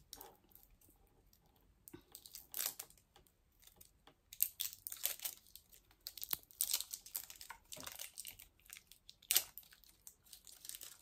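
Crinkly packaging being unwrapped and handled by hand: irregular crinkling, rustling and tearing, loudest about four and a half and nine seconds in.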